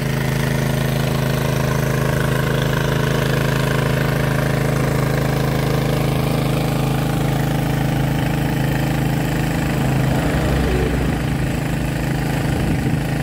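Small petrol-engine water pump (a 3-inch "alkon") running steadily, drawing water from the mud pit to circulate through the drill pipe of a manual bore well.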